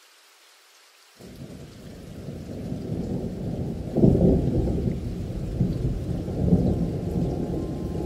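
Thunderstorm: a light hiss of rain, then thunder rumbling in about a second in and swelling to its loudest clap about four seconds in before rolling on.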